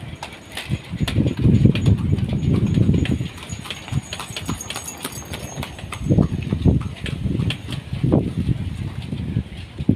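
Hooves of a horse pulling a cidomo passenger cart, clip-clopping irregularly on the paved path. Bursts of low rumble come and go.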